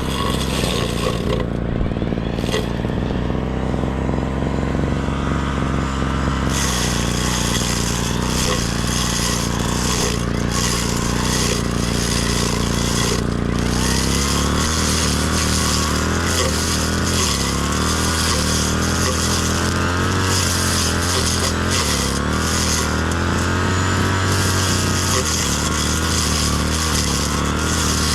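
Brush cutter's small engine running continuously, its pitch rising and falling as the throttle is worked while cutting grass.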